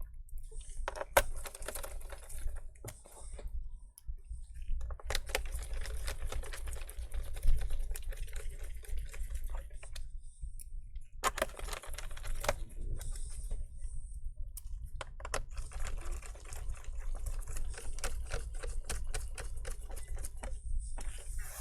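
Small screws being driven into a Dell Inspiron laptop's plastic bottom cover with a screwdriver: runs of rapid small clicks and ticks, separated by short pauses between screws.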